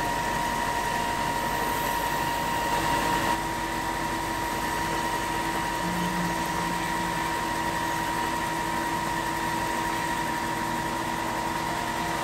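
WEN 4x36-inch belt and disc sander running with a steady whine while a wooden knife-handle scale is ground against the belt. A lower hum joins about three seconds in.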